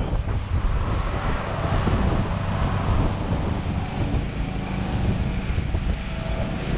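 Steady low rumble of a running motor vehicle, with outdoor noise and no distinct impacts.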